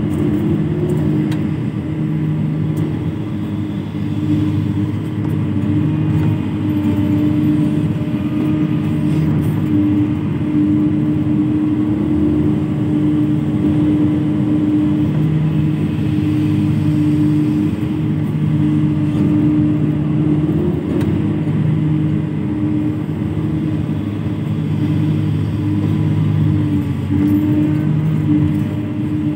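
Hydraulic excavator's diesel engine running steadily with a constant hum while the machine digs and swings its bucket.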